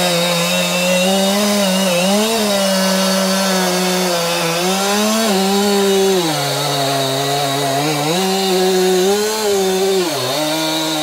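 Stihl MS261C two-stroke chainsaw running at full throttle and cutting wood, its engine pitch sagging several times as the chain loads in the cut and then climbing back.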